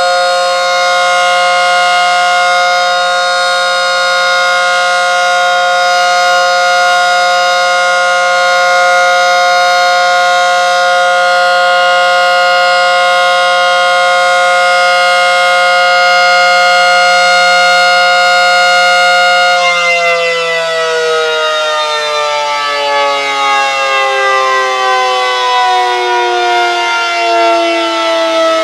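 Reverse-wired ACA Screamer S10 civil defense siren sounding a steady multi-tone chord on a full alert signal. About twenty seconds in it begins to wind down, its pitch falling slowly with a wavering level.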